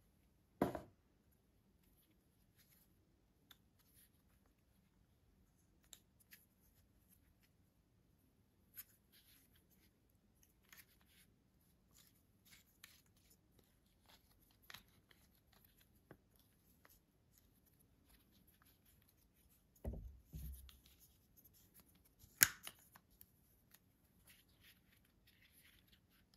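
Faint handling noise from a flexible tripod with segmented rubber-covered legs being turned and bent by hand: scattered small clicks and rustles, with a few louder knocks, a thud and a sharp click among them in the last quarter.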